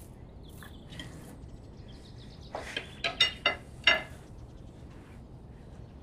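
A quick run of about five short, high animal calls about halfway through, over a quiet background.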